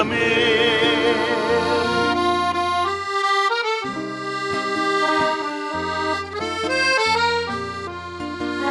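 Havanera recording: an accordion plays the melody in held chords between sung lines, over steady bass notes.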